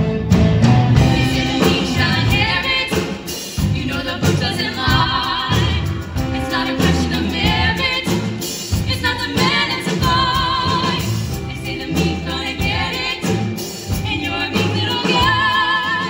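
Female voices singing a show tune in harmony over a live pit band's accompaniment.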